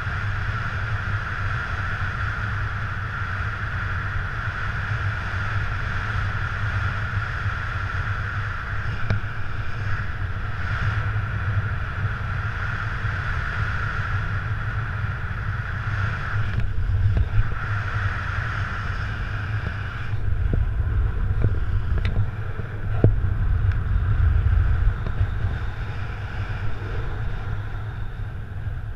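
Wind buffeting the camera's microphone in paraglider flight: a steady rumbling rush that swells in stronger gusts in the second half, with a higher hiss over it that drops away about two-thirds through.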